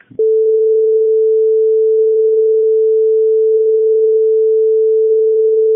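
Telephone dial tone: a single steady, unbroken tone at one pitch, starting a fraction of a second in and held loud and level.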